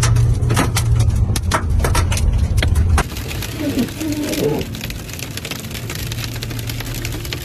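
A car driving, with a low rumble, while small volcanic stones (lapilli) strike its body and windshield in sharp, irregular clicks. About three seconds in, the rumble drops away and the stones patter more densely on the windshield.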